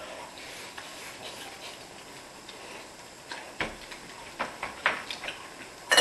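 Quiet eating noises: a scatter of short clicks and taps of chopsticks against bowls, starting about halfway through.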